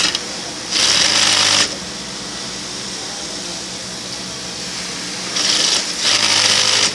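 Industrial single-needle sewing machine stitching a hem in short runs: one about a second in lasting about a second, then two more runs close together near the end, with a steady hum between them.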